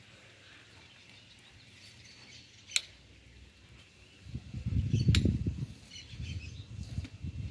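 Two sharp clicks, one near the middle and one about five seconds in, with low, irregular rumbling thumps starting about four seconds in.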